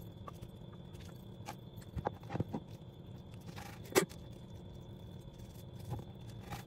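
Kitchen knife cutting raw bone-in beef on a wooden cutting board: scattered soft clicks and taps of the blade against meat, bone and board, the sharpest about four seconds in, over a low steady hum.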